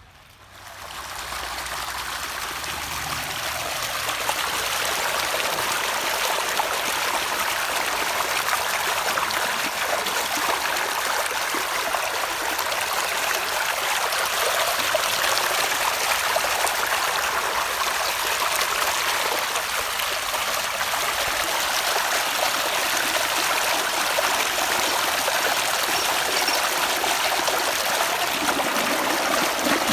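Flood-irrigation water flowing steadily into a yard as it fills, a continuous rushing that grows louder over the first few seconds and then holds steady.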